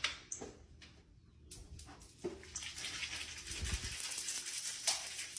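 A young deer eating crunchy snack pieces out of a hand: a few separate clicks at first, then dense crackling crunching from about two seconds in.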